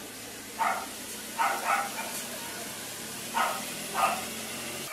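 A dog barking in short, separate barks, about five of them, two coming close together as a pair.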